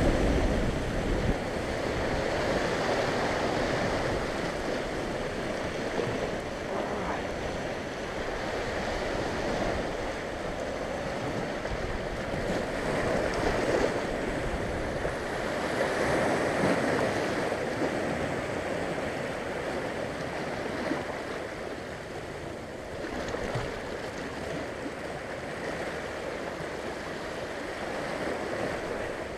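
Sea waves surging and washing over the rocks of a shoreline just below, the wash swelling and easing every few seconds.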